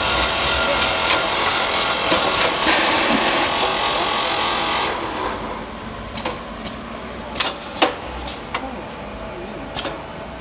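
Vacuum coffee powder packing machinery running with a dense hissing clatter. About halfway through it gets quieter, leaving a low machine noise broken by several sharp clacks.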